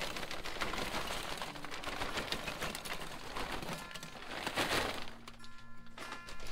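Lump charcoal clinking and rattling as it is handled in the firebox of a kamado grill being readied for lighting, a dense run of small clicks and crackles, with a short ringing tone about five seconds in.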